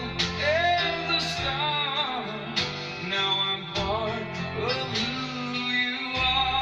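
A song: a voice singing a slow melody over instrumental accompaniment.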